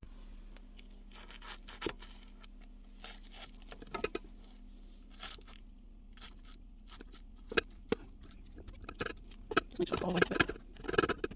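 Flaky puff-pastry crust crackling and crunching as a spatula cuts down through a pie and scrapes the non-stick pan beneath it. It is a run of irregular small crackles that grows denser and louder near the end.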